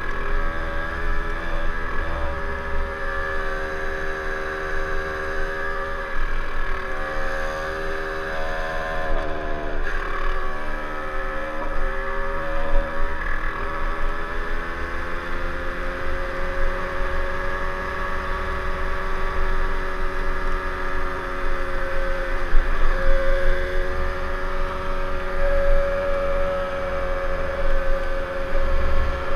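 Kundo KRD 70 dirt bike's 70cc engine with a new Stage6 exhaust, running under way. Its note shifts up and down with throttle about a third of the way in, then holds steady and slowly rises. Wind rumbles on the helmet-mounted microphone.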